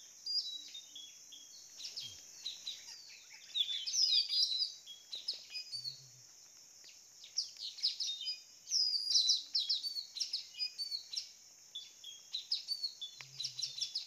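Blue-rumped parrot (nuri tanau, locally called puling) kept as a decoy bird, calling in rapid runs of short, high-pitched chirps. The calls come in several bursts and are loudest about four and about nine seconds in.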